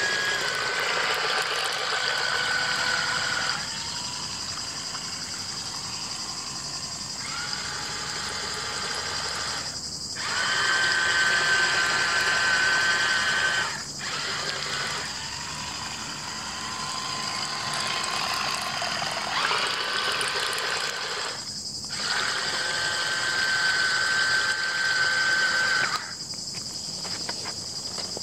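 Small electric motor of a Nikko Aquasplit 1/30-scale radio-controlled racing boat whining as the boat runs on the water. It cuts out abruptly several times and starts again, its pitch moving between a higher and a lower whine. A steady high hiss runs underneath.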